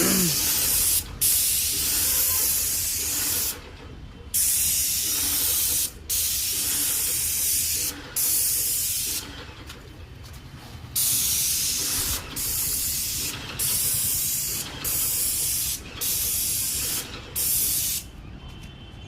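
Paint spray machine's gun spraying wall paint in about a dozen hissing bursts of one to two seconds each, as the trigger is pulled and released, over the machine's steady low hum.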